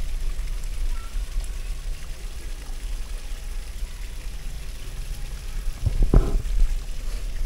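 Steady low rumble of wind and travel noise, with a brief rising note about six seconds in.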